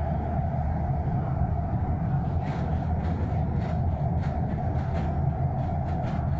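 Airport shuttle train running through a tunnel, heard from inside the car: a steady low rumble with a faint held tone, and light irregular clicks from about two and a half seconds in.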